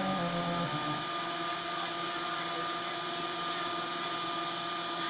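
Homemade 3D printer running a print: its stepper motors whine in short stepped pitches as the print head moves, over a steady whirring hiss with a thin high tone. The stepper tones fade about a second in, leaving mostly the steady whir.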